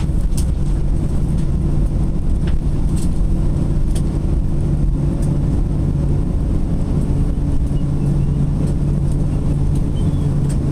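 Airliner cabin noise as the plane rolls off the runway after landing: a steady low rumble of the jet engines and wheels with a constant low hum, and a few light clicks and rattles.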